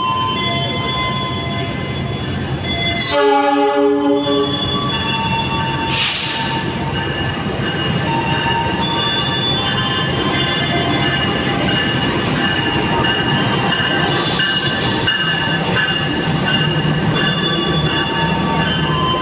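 Passenger train running on the rails with a steady rumble and high, wavering wheel squeal. A single horn blast about three seconds in lasts roughly a second and a half, and two short hisses come later.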